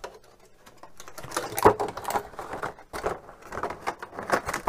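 Thin clear plastic packaging film crinkling and rustling as it is handled, in irregular crackles with a few louder ones.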